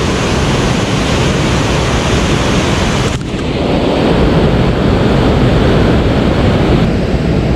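Wind buffeting the microphone: a loud, steady rushing with a deep rumble underneath. The upper hiss dips briefly about three seconds in.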